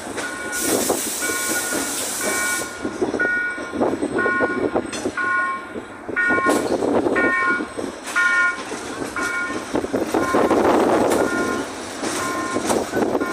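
Level-crossing warning signal beeping about twice a second, heard from inside a moving electric commuter train car. Under it run the rumble and clatter of the Toshiba car's wheels on the rails, which swell to their loudest about ten seconds in.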